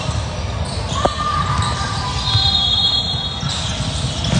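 Basketball being dribbled and sneakers pounding on a gym's hardwood floor as youth players run the ball up the court, echoing in a large hall. A single sharp thump comes about a second in, and a brief high squeak near the middle.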